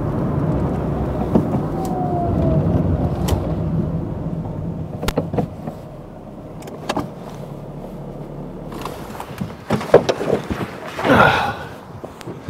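A car runs for the first few seconds, then the sound dies down. About ten seconds in, the door latch of a 1984 VW Golf 1 Cabriolet clicks and the door swings open with a short creak.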